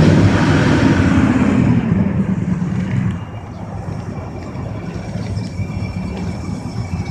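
Old Ford truck engine running after a hard start: loud at first, then about three seconds in it drops to a quieter, steady idle.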